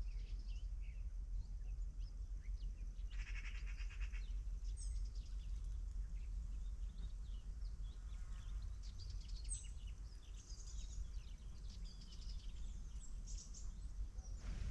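Birds chirping in short scattered calls, with one buzzy, rapidly pulsing call lasting about a second, three seconds in, over a steady low rumble.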